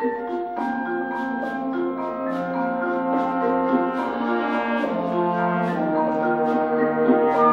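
Concert band playing held brass and wind chords, with mallet percussion striking notes on top; the music swells slightly toward the end.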